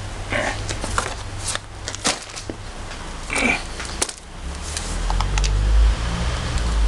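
Hands handling an RC crawler and its packaging: scattered clicks and plastic rustling, with a low rumble rising about two-thirds of the way in.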